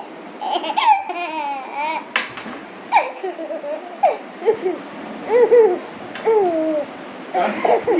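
A baby laughing and babbling, a string of short high-pitched calls that rise and fall.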